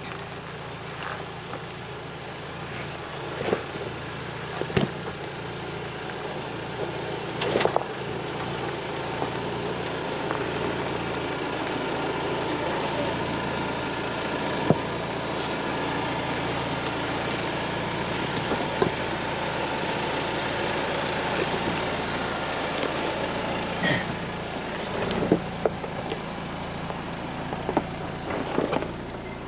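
Ford Bronco driving slowly along a dirt off-road trail: a steady run of engine and tyre noise with occasional sharp knocks and clunks from the rough ground.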